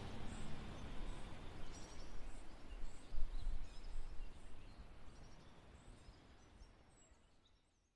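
Outdoor ambience: a steady hiss with faint, scattered bird chirps, fading out toward the end.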